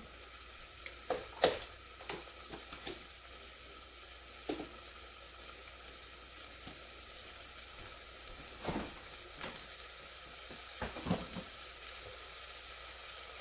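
Chopped onions and shallots sizzling softly in an Instant Pot on sauté mode as the pot heats up, with a few light knocks scattered through.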